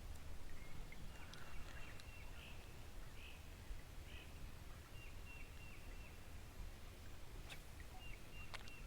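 Faint bird calls, short repeated chirps and trills, over a steady low outdoor rumble, with a couple of sharp clicks near the end.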